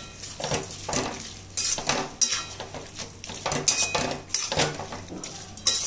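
Perforated metal ladle stirring chopped tomatoes and spices in a metal kadai, scraping and clinking against the pan in irregular strokes.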